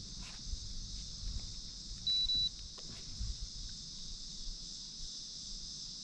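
A single short electronic beep, one steady high tone lasting under half a second, about two seconds in. It sits over a continuous high-pitched insect chorus.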